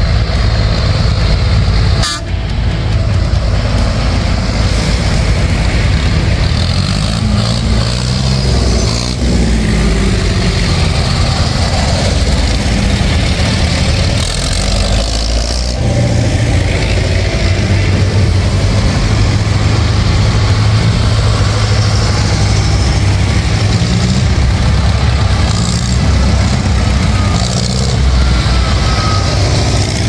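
Tractor engines running loudly in a passing parade, a steady heavy engine drone with the engine note rising and falling about a third of the way in as one revs.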